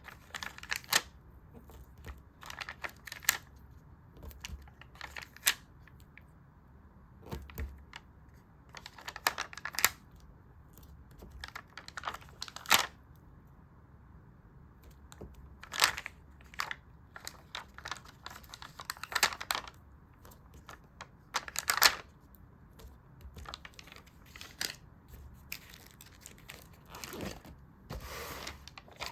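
Stickers and paper in a sticker journal being handled: short crinkles, peeling rustles and light taps coming in scattered bursts, with brief pauses between.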